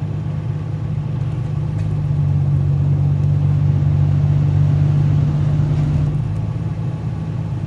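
Nissan Skyline GT-R BNR32's RB26DETT twin-turbo straight-six running at idle with a steady low hum, which swells louder for about four seconds mid-way before settling back. It is the car's odd noise, which the owner traced to the air conditioning.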